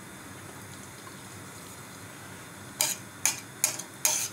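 Hot oil sizzling faintly in a kadhai with asafoetida just added; near three seconds in, a metal spatula starts stirring, scraping and knocking against the pan in a few quick strokes.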